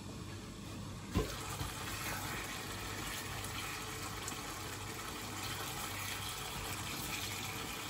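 Chicken stew simmering in a sauté pan, a steady bubbling hiss that gets louder once the glass lid is lifted off with a clink about a second in, while a spatula stirs the pieces.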